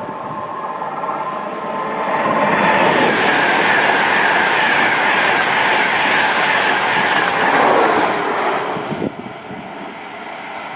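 A train passing at speed on the track. The noise builds over about two seconds, stays loud for about six, then drops away abruptly as it clears; light wind noise follows.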